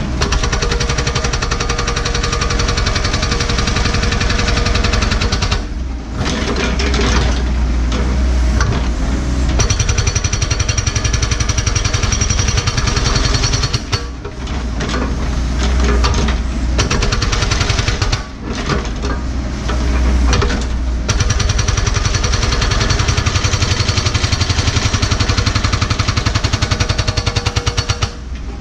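NPK hydraulic breaker hammer on a Cat 314E excavator pounding hard blue rock bedrock in rapid, continuous blows, stopping briefly several times between runs, with the excavator's engine running underneath.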